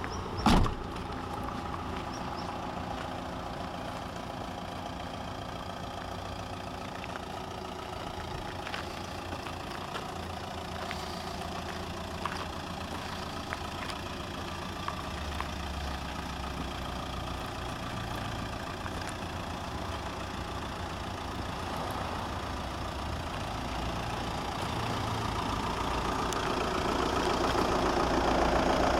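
Audi A3 2.0 TDI four-cylinder diesel engine idling steadily, getting louder over the last few seconds. A single loud thump about half a second in.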